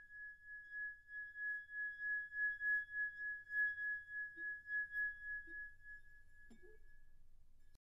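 A high, steady ringing tone, like a tuning fork, used as a glowing or magic sound effect. It pulses in loudness about three times a second, fades after about six seconds and cuts off abruptly near the end.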